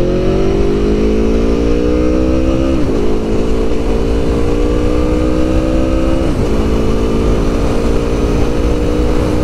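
2021 Aprilia Tuono Factory's V4 engine with Akrapovic exhaust, accelerating hard from a standstill. The engine note climbs steadily and drops back at two upshifts, about three and six seconds in, with wind noise underneath.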